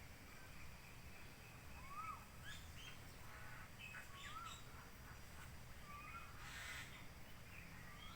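Faint calls of several birds: short arched whistled notes and quick chirps scattered through, with a harsher, noisier call about six and a half seconds in.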